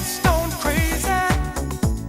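Upbeat electronic dance music with a steady kick-drum beat and a melody line that bends in pitch.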